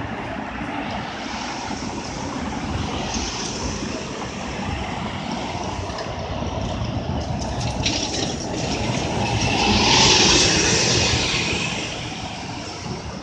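City street traffic: a steady rumble of passing cars, with one vehicle passing close and its tyre noise swelling loudest about ten seconds in.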